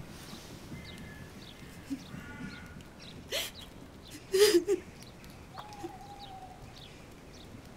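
A woman crying and sobbing, with a few short wavering cries, the loudest about four and a half seconds in. Birds call faintly in the background.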